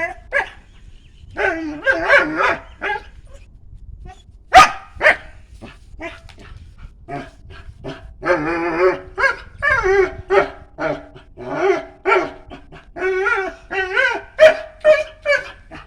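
A dog barking in short, sharp barks, then from about halfway through a run of longer pitched calls that bend up and down, mixed with more short barks.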